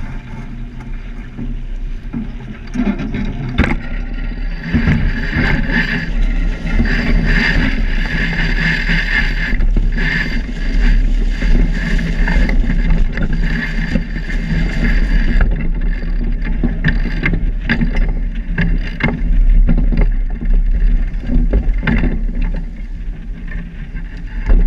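Wind buffeting the microphone and water rushing along the hull of a sailboat under sail, with clicks and rattles from the crew working the sheet winches.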